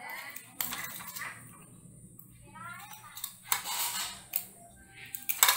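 Hands handling a desktop PC's power-supply wiring inside the steel case: plastic cable connectors and wires clicking and rattling in short bursts, the loudest cluster near the end.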